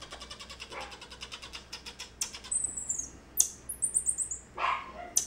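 Baby common marmoset calling in alarm: a rapid run of tiny clicking chirps for the first two seconds or so, then a string of sharp, very high-pitched calls that sweep downward, with a lower call shortly before the end.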